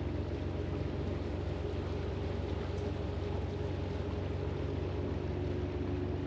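Boat engine running steadily at an even speed as the boat motors along, a constant low hum with water and wind hiss over it.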